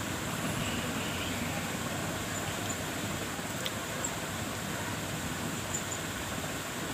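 Steady background noise, an even hiss from the room and microphone, with one faint click about three and a half seconds in.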